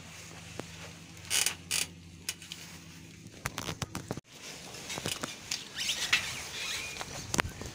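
A bicycle handled and wheeled by hand: creaks and scattered sharp clicks and rattles from its parts, with two short rustles about a second and a half in. After an abrupt change, more clicks and knocks follow as the bike is set by a metal bike rack.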